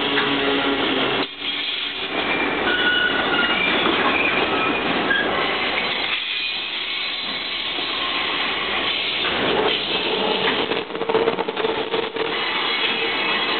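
Container flatcars of a freight train rolling past close by, with a steady noise of steel wheels running on the rails.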